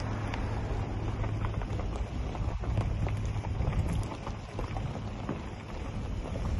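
Wind blowing across the phone's microphone, a steady low rushing noise that eases a little past the middle.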